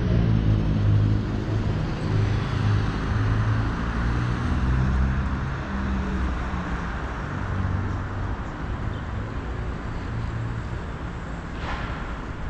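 Road traffic on a city street: car engines humming and tyres passing, loudest at the start and easing off, with a brief hiss near the end.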